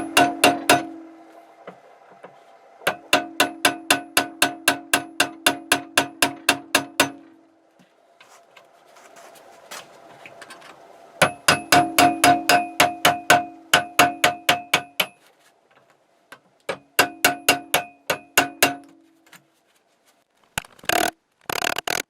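Rapid runs of hammer blows on a screwdriver used as a punch, about four or five ringing metallic strikes a second, in four bursts with short pauses between them. They are driving out a stuck pin stub, which the owner takes to be rusted in. Near the end come a couple of short, harsh noisy bursts.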